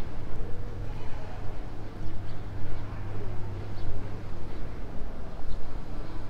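Outdoor city ambience: a steady low engine hum with faint background voices and a few faint high chirps.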